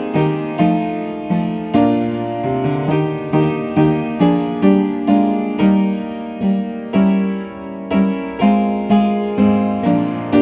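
Solo piano playing a hymn tune in chords, a new note or chord struck about twice a second, each one ringing and fading.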